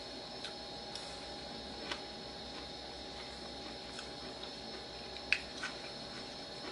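A metal spoon clicking softly against a bowl while eating, a few scattered taps with the sharpest about five seconds in, over a faint steady hum of room tone.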